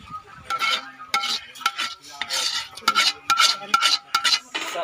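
A ladle scraping and knocking against a wok as cooked cuttlefish adobo is scooped out onto a serving plate: a dozen or so quick scrapes, many with a ringing note from the pan.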